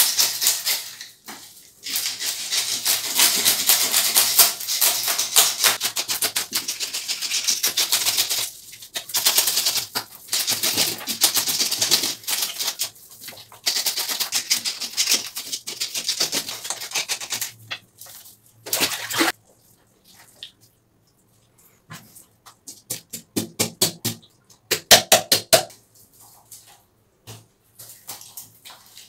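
Plastic fish scaler scraping scales off a whole milkfish on a wooden block, a fast rasping chatter of rapid strokes in long runs. In the second half the strokes come in shorter bursts with quiet gaps between them.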